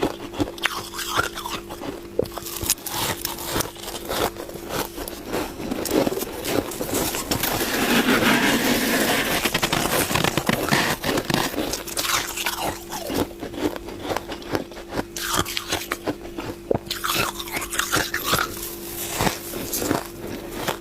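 Close-up crunching and chewing of freezer frost, teeth biting through the packed ice crystals in quick irregular crunches. About seven seconds in, the crunching grows denser and louder for a few seconds, then settles back. A faint steady hum sits underneath.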